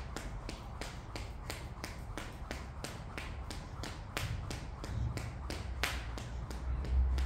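Skipping rope slapping the floor on each turn, a steady rhythm of sharp ticks about four times a second.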